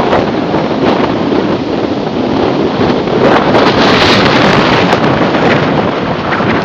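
Strong wind buffeting the microphone in a steady loud rush, swelling into a stronger gust about halfway through: the gale still blowing in the wake of a hurricane.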